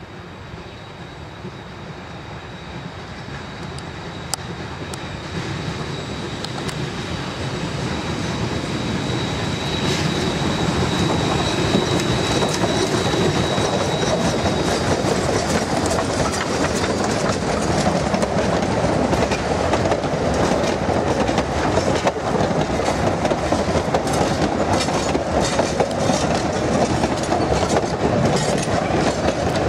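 Double-headed narrow-gauge steam train, a 4-6-0 and a Denver & Rio Grande K-27 2-8-2, growing louder for about ten seconds as it approaches and passes, with a faint high whine in the first half. Then its wooden passenger coaches roll by with a steady clickety-clack of wheels over the rail joints.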